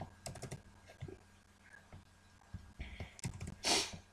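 Scattered clicks of computer keyboard keys, pressed a few at a time in short clusters while code is edited, with one short hiss near the end.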